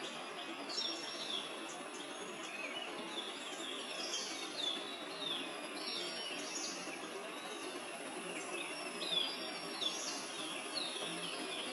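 Small birds chirping, many short falling notes several times a second, over a steady hiss of outdoor ambience.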